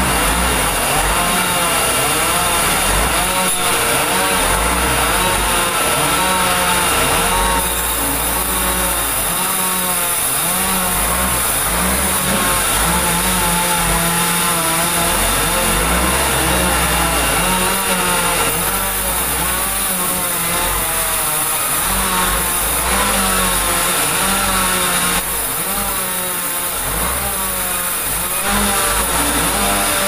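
Large vertical band sawmill running and cutting through a big meranti log: a steady high whine over the machine's hum, its pitch wavering up and down as the blade works through the wood, with the sound changing a few times along the way.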